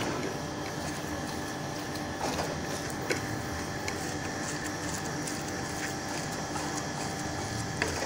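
Steady mechanical hum in the background, with a few light clicks and soft scraping from hands rubbing crumbly fresh chhena against a ceramic plate.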